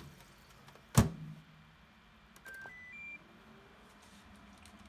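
A Hitachi oven's door shuts with a single thump about a second in, followed by three short electronic beeps, each higher than the last, from its control panel buttons.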